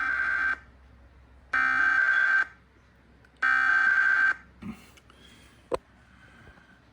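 Emergency Alert System SAME header for a required weekly test: a raspy digital data burst of about a second, sent three times with about a second's gap between, followed by a sharp click near the end.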